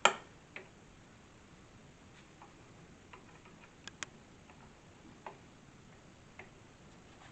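Scattered light clicks and taps of a hinge and wooden box parts being handled and positioned: a sharper click right at the start, then single taps every second or so, with a quick double click about four seconds in.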